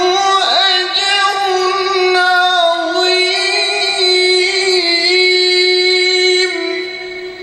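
A man's voice in melodic Quran recitation, holding one long, high note with ornamented turns and quivers, then stopping about six and a half seconds in.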